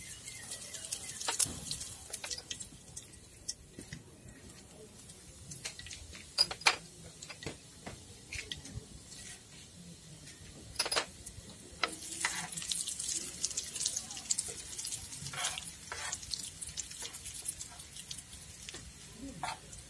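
Washing at a kitchen sink: splashing water in uneven spurts, with a few sharp knocks and clinks.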